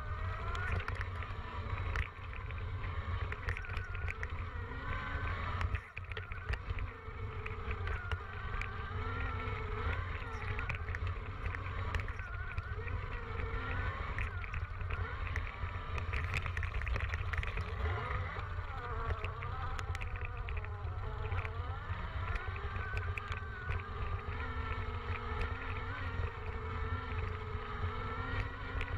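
Electric dirt bike motor whining, its pitch rising and falling as the bike speeds up and slows down, over a low rumble and scattered clicks and knocks from riding over a rough dirt trail.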